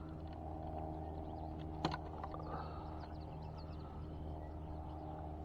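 A steady low mechanical hum with one sharp click a little under two seconds in, and faint bird chirps.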